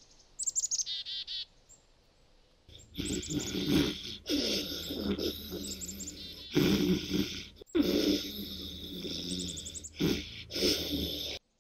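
Birds chirping in quick falling trills, then a cartoon dog snoring in about five long, drawn-out snores with short pauses between, birdsong chirping over them.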